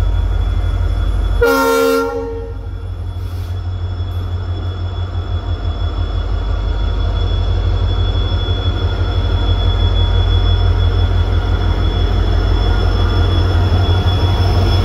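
A train horn sounds once, briefly, about a second and a half in, over the low rumble of a train. The rumble then grows steadily louder.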